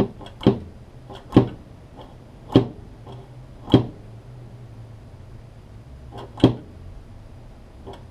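Five sharp knocks at uneven intervals, with a longer gap before the last: the vintage Cowley automatic level being handled and bumped against a hard surface while it is tested.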